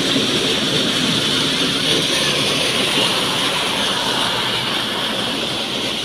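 Maize thresher (corn sheller) running steadily as cobs are fed in, with a tractor engine running alongside: a constant mechanical drone with a thick rattle and hiss of shelled kernels.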